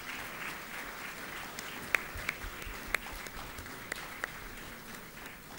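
Audience applauding with light, scattered clapping, a few single claps standing out louder, dying away near the end.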